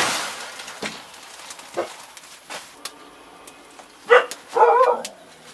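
Two short animal calls about four seconds in, a brief yelp then a longer wavering cry, over faint scattered crackling from a wood fire.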